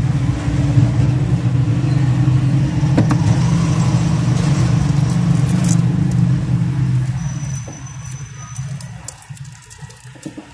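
A steady low mechanical hum that fades away about seven to eight seconds in, leaving a few light clicks and taps of small parts being handled.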